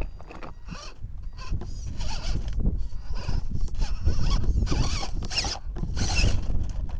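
Electric motor and gear drivetrain of an RC scale rock crawler whining in short throttle bursts, its pitch rising and falling as it crawls over rock.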